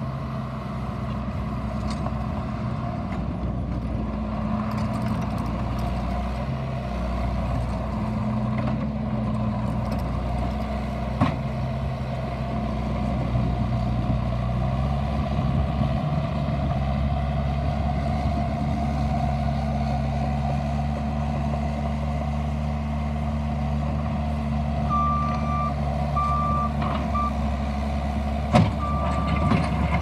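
Bobcat T750 compact track loader's diesel engine running steadily while the machine works. A backup alarm beeps repeatedly in the last few seconds, and there is a sharp clank near the end.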